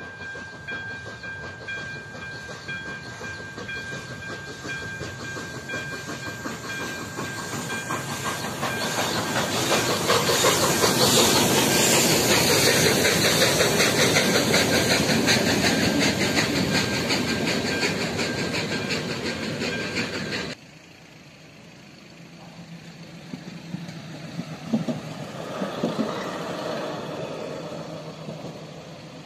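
A level-crossing warning bell rings steadily as a steam-hauled train approaches. The train, with a diesel locomotive and coaches, then passes loudly, hissing, with rapid wheel clicks over the rail joints. About twenty seconds in the sound cuts abruptly to a quieter crossing, where a yellow track-maintenance vehicle runs past with a few sharp knocks.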